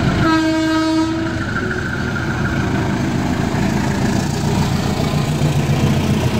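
Diesel-electric locomotive sounds one short horn blast about a quarter second in, then its diesel engine rumbles steadily, growing louder after about four seconds as it rolls past close by.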